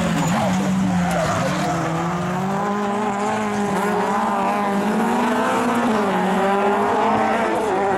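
Several rallycross cars racing through a curve, their engines revving up and down at once in overlapping pitches.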